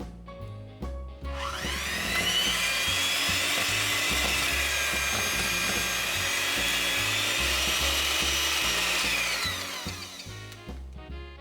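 An electric kitchen mixer runs for about eight seconds, its whine rising as it starts about a second in and falling as it stops near the end, with background music underneath.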